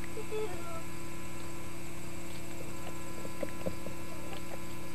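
Steady electrical hum, a low buzz made of several even, unchanging tones, with two faint clicks about three and a half seconds in.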